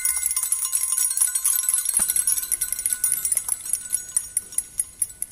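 Small jingle bells (grelots) shaken in a fast, dense jingle that thins out and fades near the end. Underneath, the last ringing tones of struck xylophone or glockenspiel notes die away in the first couple of seconds.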